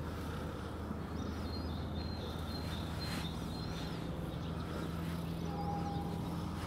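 Steady low outdoor hum, with a small bird chirping several times in short wavy phrases.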